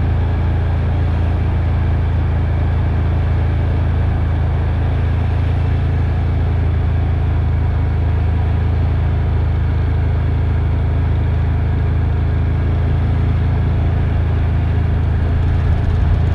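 ATV engine running steadily at low speed, a constant low drone close to the microphone.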